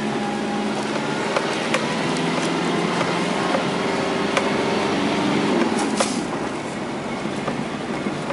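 Car engine running at low speed, heard from inside the cabin, with scattered sharp knocks and rattles as the car jolts over a rough, rutted dirt road. The engine note shifts in pitch a little past halfway.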